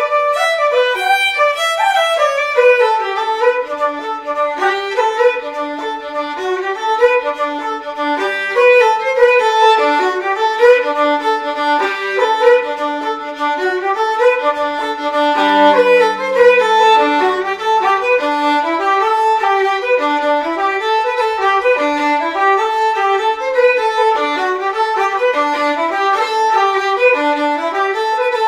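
Irish flute and fiddle playing a lively traditional slip jig together, a running melody of quick notes in 9/8 time.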